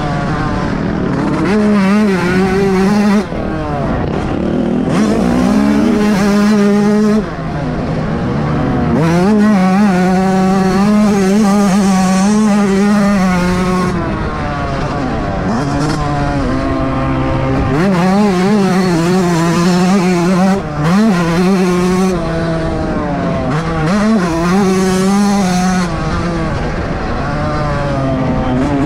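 Yamaha YZ125's single-cylinder two-stroke engine ridden hard, revving up and shifting, its pitch climbing and dropping again and again, with sudden throttle cuts a few times.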